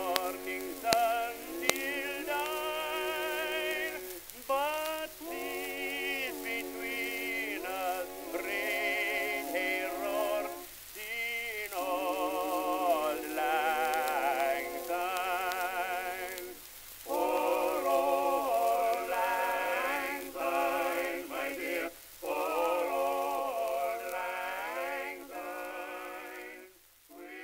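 Music with a singing voice using heavy vibrato, thin-sounding with no bass or high treble; it fades out near the end.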